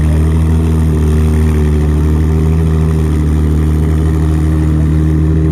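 A Ferrari's engine idling steadily, a low, even hum that holds the same pitch throughout.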